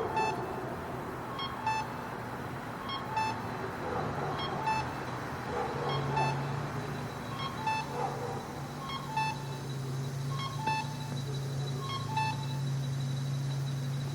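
Traffic-light pedestrian crossing signal beeping: short high-pitched beeps in pairs, about every one and a half seconds, over steady city traffic noise with a low hum that grows stronger about halfway through.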